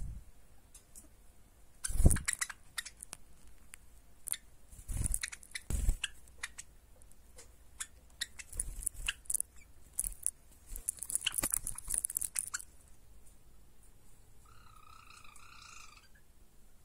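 Java sparrows moving about in a fleece blanket and cloth bag: scratchy rustling and clicking of claws on fabric, with a few soft thumps. Near the end one Java sparrow gives a single wavering call lasting about a second and a half.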